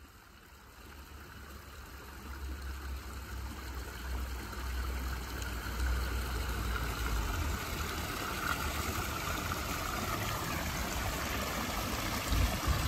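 Pool wall-fountain spouts splashing steadily into the water, growing louder over the first few seconds and then holding steady, with a low rumble underneath.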